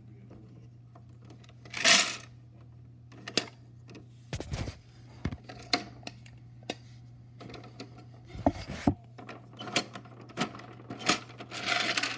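Plastic clicks, knocks and clatters from a toy Bruder garbage truck and its small plastic trash bins being handled, at irregular moments with a louder clatter about two seconds in and a busier cluster near the end.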